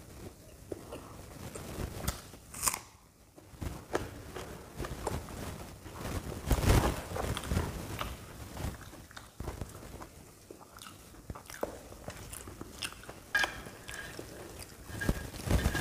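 Close-up eating sounds: crunchy bites and chewing, with crackling as crisp deep-fried puris are torn apart and eaten, loudest a little past the middle.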